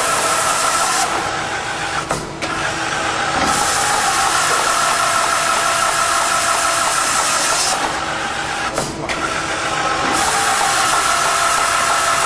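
CNC beam drill line drilling through structural steel with an 18 mm (13/16") Ocean Penetrator drill bit under a hissing air-and-coolant mist spray, with a steady machine tone underneath. The loud hiss drops twice for a couple of seconds, each time with a short clunk, in a cycle of about 7 seconds as one hole is finished and the next is started.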